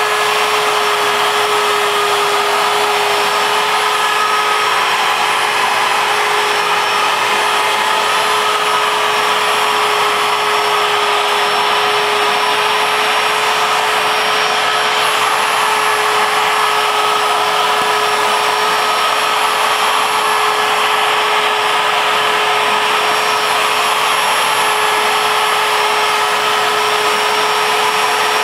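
ShapeOko CNC mill's router spindle running steadily while its end mill cuts MDF: a steady whine held on one pitch over a rushing hiss. A shop vacuum draws the sawdust through the dust shoe at the same time.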